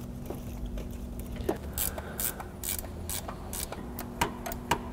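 Scattered light metallic clicks and clinks as the air-conditioning compressor mounting bolts are started by hand with a wrench, about a dozen irregular ticks over a few seconds.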